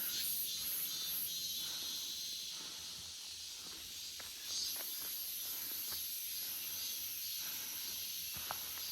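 Cicadas singing in chorus, a steady high-pitched buzzing drone that sounds almost like a hiss.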